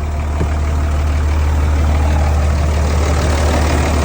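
2003 Dodge Ram engine idling steadily with a deep, even hum, running again now that its no-crank, no-start fault, an unplugged starter-relay connector, has been fixed.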